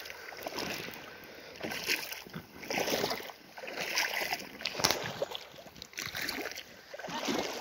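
Water splashing and sloshing as feet wade through a shallow river, in uneven surges about every second or two.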